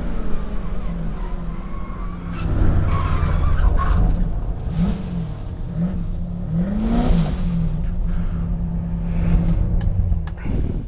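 Holden Commodore VK's 308 V8 heard from inside the cabin under racing load, its pitch rising and falling in several short blips around the middle, then the engine sound falls away sharply near the end as the car slows.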